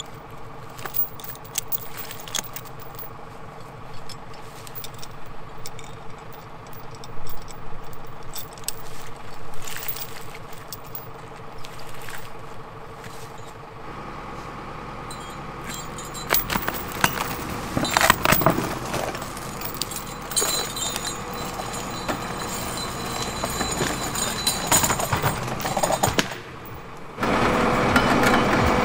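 Zetor Proxima 90 tractor's diesel engine running to drive its Kučera forestry winch, with sharp clinks and knocks of chains and logs on top. About halfway through the engine grows louder and deeper, and near the end it is heard up close, much louder.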